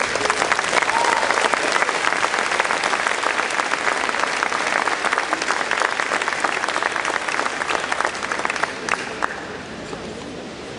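Audience applauding: dense clapping that starts right away and dies down to a few last claps near the end.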